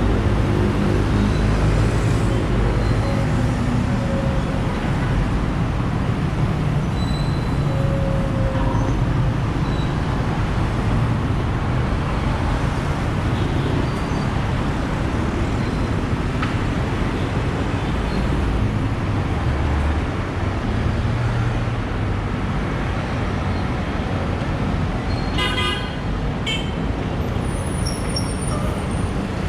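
Busy city street traffic: engines running and vehicles passing steadily, with short horn toots here and there.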